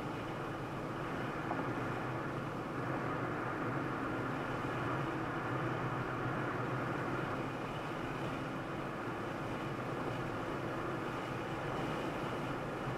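Steady road and engine noise of a car driving, even and unbroken.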